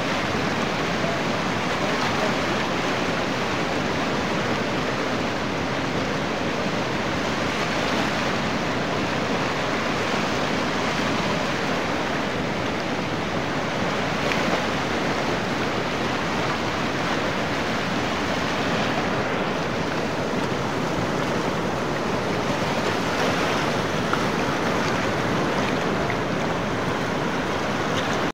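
Fast mountain river rushing and splashing over rocks and boulders: a steady roar of white water.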